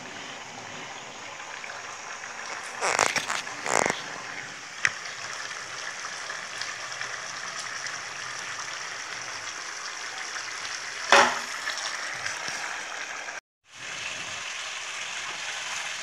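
Chicken curry sizzling and bubbling steadily in an open frying pan over a gas flame, its liquid cooking down. A few clatters come about three to four seconds in, and a sharper knock about eleven seconds in.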